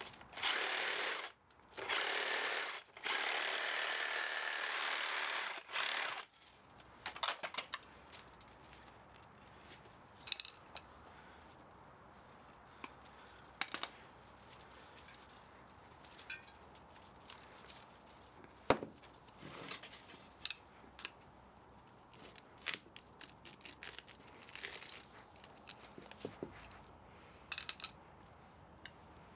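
Hand work on a scrap electric motor: several loud, noisy stretches of about a second each during the first six seconds, then scattered sharp clicks and taps of tools and metal parts.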